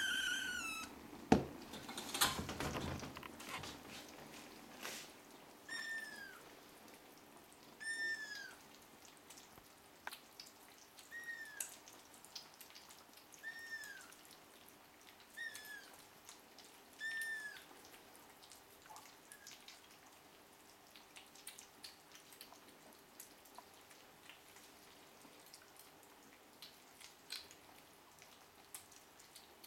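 Ragdoll kittens eating wet cat food from a plate: a knock and a rustle near the start as the plate is set down, then one kitten giving short mews about every two seconds for a while, over faint wet clicking of eating.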